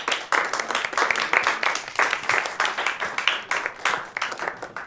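Audience applauding, many hands clapping, fading out near the end.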